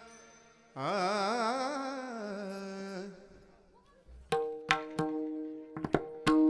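Recorded devotional song: a sung phrase with a wavering, vibrato-laden pitch about a second in, then, after a short lull, sharp drum strokes over a sustained steady drone in the second half.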